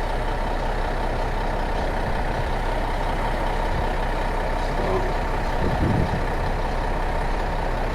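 Tour bus engine running: a steady low rumble with a hum underneath.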